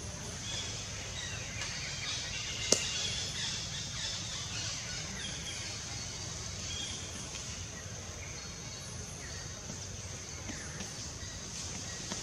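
Outdoor forest ambience: scattered bird chirps over a steady high hiss, with one sharp click nearly three seconds in.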